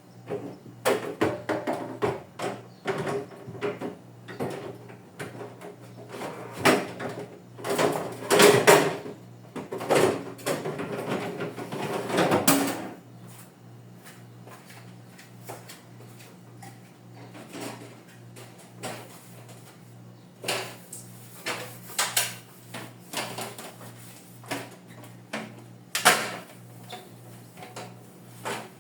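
Clatter of refrigerator drawers, shelves and containers being handled: a dense run of knocks and clicks for the first dozen seconds, then scattered single knocks, with a loud one near the end. A steady low hum runs underneath.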